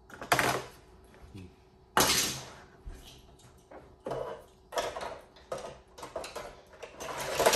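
Hard plastic toy-track pieces and small die-cast toy cars clattering as they are handled, in a string of sudden knocks and rattles every second or two.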